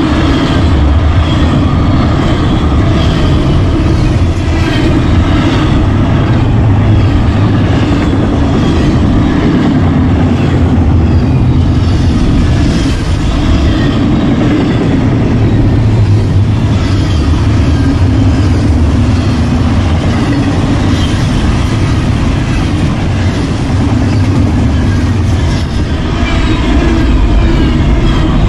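Union Pacific double-stack intermodal freight train passing at speed: a loud, steady rumble of container cars' wheels on the rails, with regular wheel clicks.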